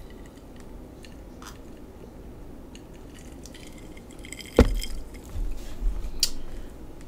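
Quiet mouth sounds of a person sipping a drink from a small glass and chewing. About four and a half seconds in there is one sharp knock, which is the loudest sound: the glass being set down on the table.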